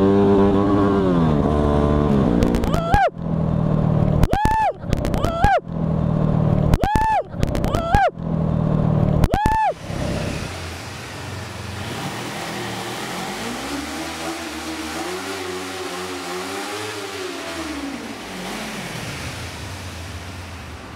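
Motorcycle engine pulling away and accelerating hard through the gears, with about six quick shifts in the first ten seconds, each a brief drop in the engine note. After that it settles to a quieter, steady cruise, its pitch rising and falling once near the middle of that stretch.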